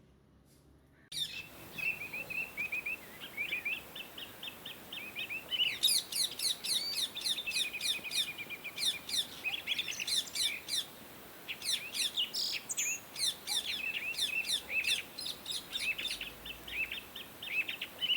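Pet parrots chirping: rapid, short, high chirps that start abruptly about a second in and grow denser and shriller from about six seconds in.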